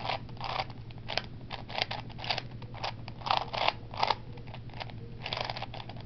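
A plastic 3x3 Rubik's Cube being scrambled by hand: a quick, irregular run of clicking, rattling layer turns, about two or three a second.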